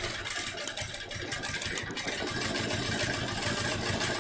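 Home sewing machine running steadily at speed, its needle stitching in a fast, even rhythm while free-motion quilting.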